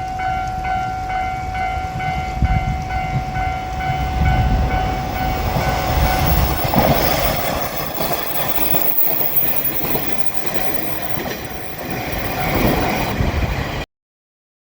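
A Japanese level-crossing warning bell rings its steady, pulsing 'kan-kan' while a JR Shikoku 1000 series diesel railcar rumbles over the crossing, with wheel clatter loudest about four to seven seconds in. The sound cuts off abruptly just before the end.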